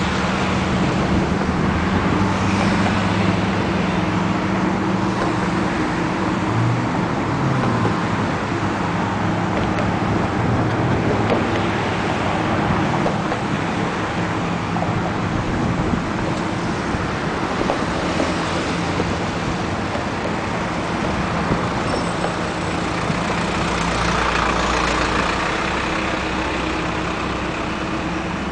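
Steady motor hum over a constant rumbling background, swelling briefly near the end.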